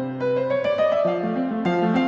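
Background piano music: notes struck in chords under a melody, each held and ringing on.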